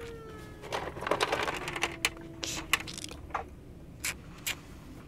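Hard plastic toy figures clicking and tapping against a stone countertop as they are moved and set down, with a brief scuffling of plastic on stone about a second in.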